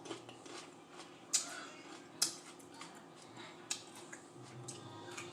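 Crisp crunching and chewing of raw mini sweet peppers close to the microphone, with a few sharp crunches, the loudest about a second and two seconds in.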